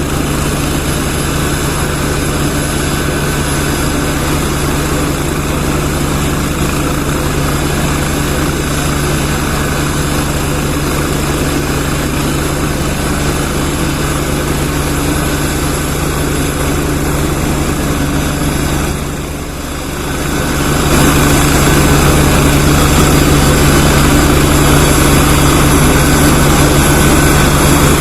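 Helicopter turbine engine and rotor running steadily, with a constant high whine over a low drone. About two-thirds of the way in the sound drops briefly, then comes back louder and stays there.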